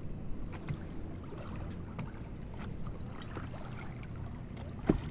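Small waves lapping and ticking against the hull of a fishing boat over a steady low hum, with one sharp knock near the end.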